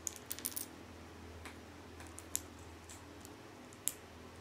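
Small plastic Lego bricks handled and pressed together in the fingers: a quick cluster of light clicks at the start, then a few single sharp clicks.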